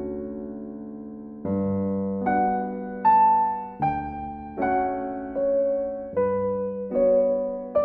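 Background piano music: a slow run of struck keyboard notes and chords, a new one about every three-quarters of a second, each fading away before the next.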